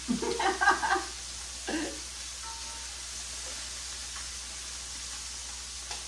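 Catfish fillets sizzling steadily in hot cast iron skillets. A voice murmurs briefly in the first second or two.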